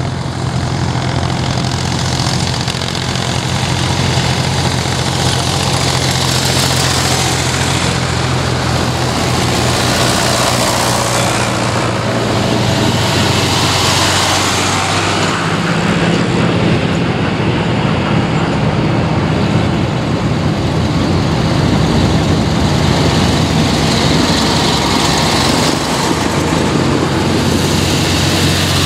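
Vintage farm tractors' diesel engines running steadily as a procession of tractors drives past one after another, the sound swelling as each nears and passes close, with a change in engine pitch about halfway through as a John Deere goes by and the next tractors come up.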